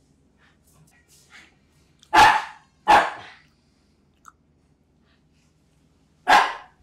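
Three short, loud slurps of hwachae fruit punch sipped off a wooden spoon close to the microphone: two in quick succession about two seconds in, and a third near the end.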